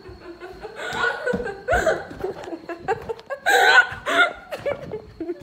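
A girl's voice in short, breathy, gasping bursts with sharp breaths between them, loudest near the end.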